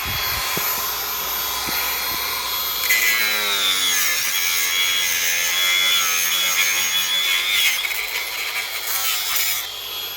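Angle grinder cutting into a Poulan Pro chainsaw's body. The sound grows louder and harsher about three seconds in and eases off near the end.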